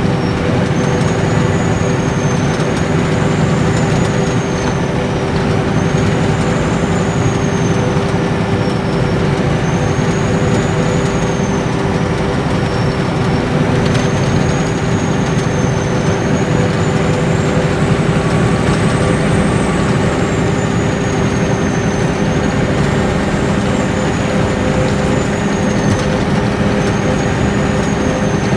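Nissan Diesel Space Arrow RA coach's inline-six turbodiesel running steadily at cruising speed, heard inside the cabin with tyre and road noise, under a high turbocharger whistle that wavers gently up and down.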